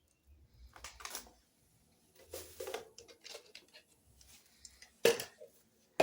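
Household items being picked up and moved about on a shelf: scattered rustling and light clattering, with a sharp knock about five seconds in.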